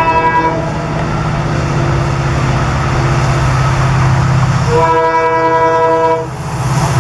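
Diesel locomotive horn sounding twice: a short blast right at the start and a longer one of about a second and a half some five seconds in. Both sound over the steady pulsing rumble of the locomotive's diesel engine.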